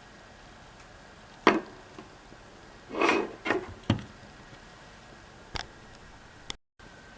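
Hard parts being handled, with no motor running: a sharp click about a second and a half in, a short cluster of knocks around three seconds, then two more single clicks.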